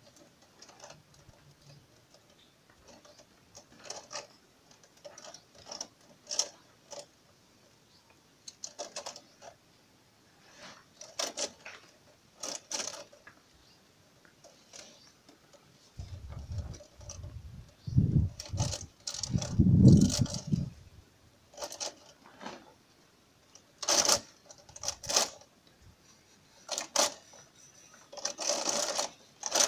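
Stiff plastic biofilter matting rattling, crackling and scraping against a plastic mesh basket as it is pushed and squeezed down into it, in short irregular clatters. A few heavier low thumps come about halfway through.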